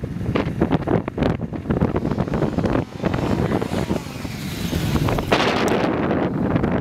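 Sport motorcycle engine running and revving under heavy wind buffeting on the microphone. A steadier, louder rush sets in about five seconds in.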